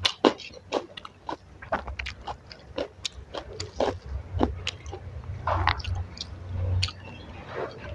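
Close-miked chewing of crisp fried cabbage pakora: sharp, irregular crunches a couple of times a second, with a few longer, wetter mouth sounds past the middle.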